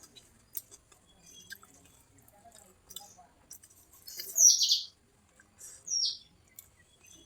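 Two high chirps that fall in pitch, the first about four seconds in and longer, the second about a second and a half later, over faint clicks and smacks of someone eating.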